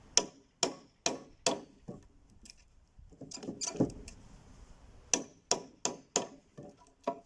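Hammer blows on a square mortise chisel cutting into wood: a run of four sharp knocks about half a second apart, a softer drawn-out sound, then another quick run of four knocks and one more near the end.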